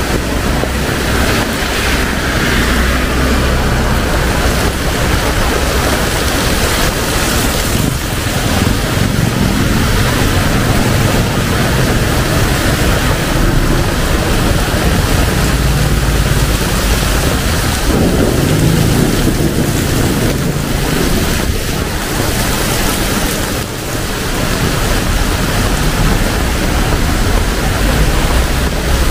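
Heavy tropical rain pouring steadily onto a street, a dense hiss of drops splashing on wet pavement and standing water. A low rumble builds under it through the middle and fades again.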